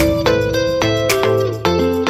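Background music: melodic notes over a steady beat.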